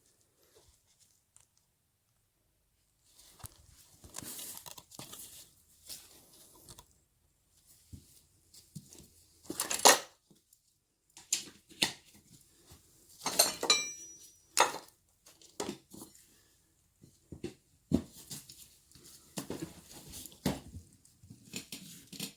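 Irregular clanks, scrapes and rustles of tools and parts being handled, with one ringing metal strike about halfway through.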